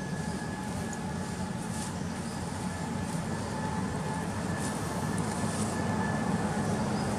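Motor vehicle engine running on a nearby road, a steady low rumble that grows slightly louder toward the end, with a faint thin steady whine above it.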